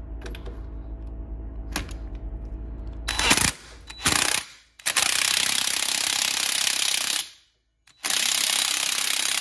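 Cordless impact wrench hammering the clutch retaining nut tight on a 125 cc ATV engine: two short bursts about three and four seconds in, then two longer runs of about two seconds each.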